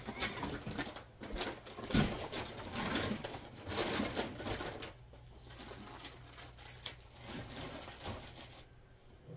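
Rustling and light clattering of belongings being picked up and moved by hand, busiest in the first five seconds, then thinning to a few scattered clicks.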